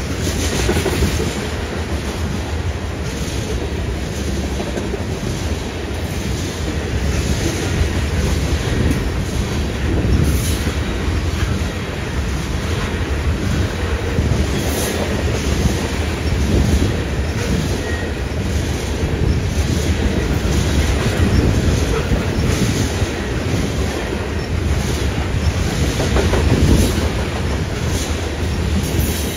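CSX freight train rolling past close by: a steady rumble of freight cars with repeated clicks of steel wheels over rail joints.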